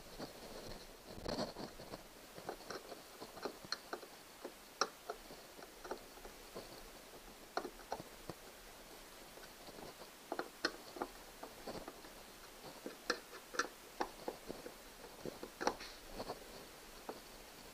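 Hand screwdriver driving the mounting screws of a kayak's plastic rudder control handle plate, with hands working at the plate: irregular small clicks and ticks, several a second at times.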